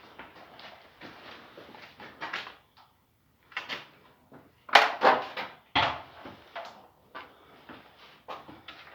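Knocks, clunks and scraping from hands-on work on the outboard lift and stand, irregular throughout. The two loudest knocks come about five and six seconds in.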